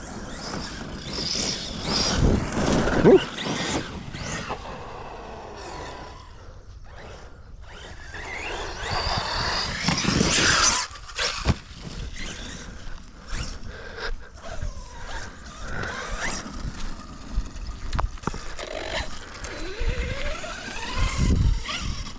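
Brushless electric RC monster truck on a stock BLX185 speed controller being driven hard. Its motor whines up and down in pitch as it accelerates and brakes, with tyre scrabble and a few thumps as it lands.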